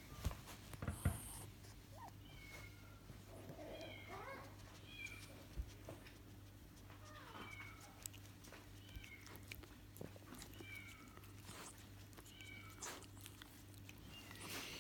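West Highland White Terrier puppies whimpering: a series of short, high squeaks, roughly one a second, with a few soft knocks in the first second.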